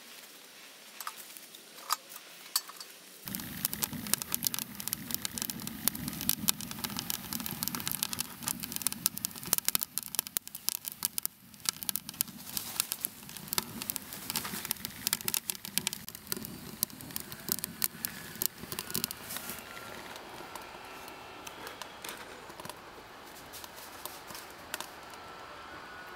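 Wood fire crackling in the firebox of a small homemade stainless-steel wood stove, a dense run of sharp snaps. It starts suddenly about three seconds in and thins out over the last several seconds.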